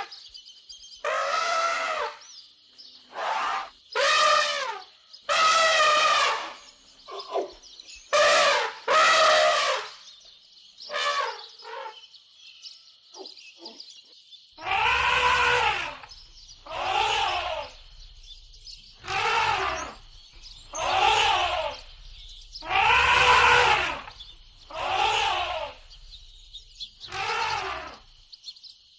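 Elephant trumpeting: a long series of loud, brassy calls, each about a second long with a short gap between them. The pitch rises and falls within each call.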